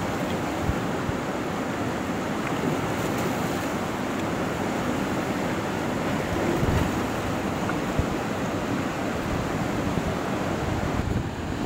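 Steady rushing of a fast, muddy mountain river running through rapids past boulders.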